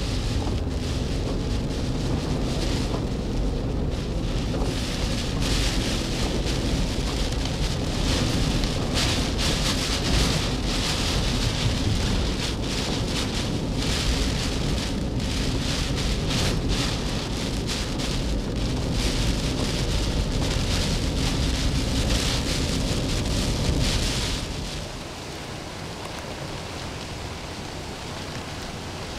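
Tropical-storm rain and wind beating on a moving car, heard from inside the car, with many small rain hits over a low road rumble. About 24 seconds in it changes to quieter, steadier storm wind and rain outdoors, without the rumble.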